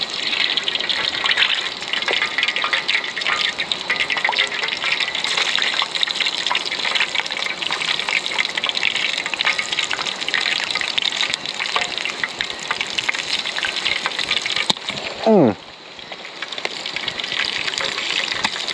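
Wolf spider frying in hot oil in a small pan over a gas-cartridge camping stove: a steady sizzle full of fine crackles. A short falling tone sounds near the end.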